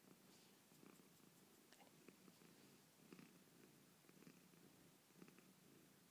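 Angora cat purring faintly, the purr swelling and fading about once a second with each breath.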